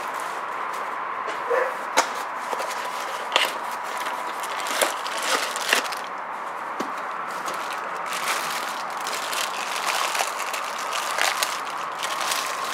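Plastic packaging bag crinkling and rustling while a strap wrench is unwrapped from it, with irregular sharp crackles and taps from handling the cardboard box.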